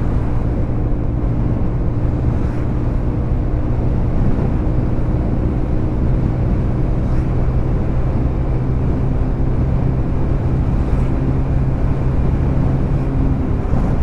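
Motorcycle running steadily at cruising speed on the open road, a constant engine drone under a rush of wind and road noise.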